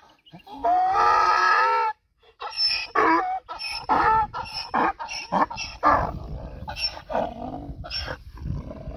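Donkey braying: one long drawn-out note that cuts off about two seconds in, then a run of short hee-haw calls, about two a second.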